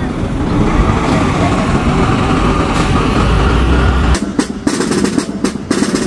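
An amphibious military vehicle's engine running with a steady, deep drone. About four seconds in it cuts to a snare drum struck with sticks in a quick, even rhythm.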